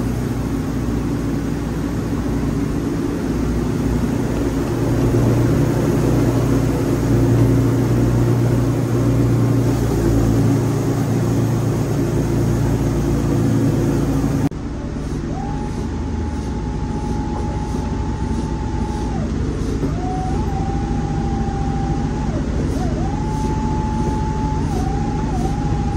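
Wood-Mizer LT40 band sawmill running with a loud, steady engine drone. About halfway through the sound changes abruptly, and a steady high whine then starts and stops four times over the lower hum.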